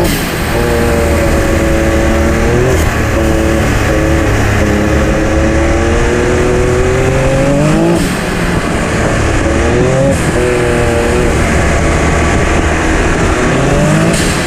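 Can-Am Maverick X3's turbocharged three-cylinder engine revving up several times under throttle. Each run ends in a sudden drop in pitch as the throttle is lifted, with a short hiss from the atmospheric blow-off valve venting boost.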